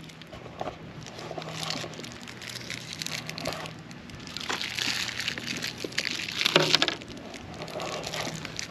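Plastic wrapper of a peppermint Life Savers candy crinkling as it is picked open by hand, in irregular crackling bursts, loudest about halfway through and again with a sharp burst near the seven-second mark.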